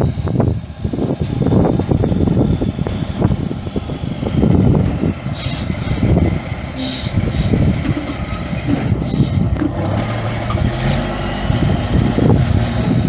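Caterpillar 14.6-litre inline-six turbo diesel of a heavy dump truck running with a steady low rumble, with a few short bursts of hiss in the middle.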